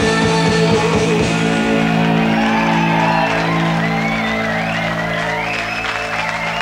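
A rock band holding its final chord live: drums hit hard for the first second or so, then the electric guitars ring on with wavering high tones above the chord, slowly getting quieter.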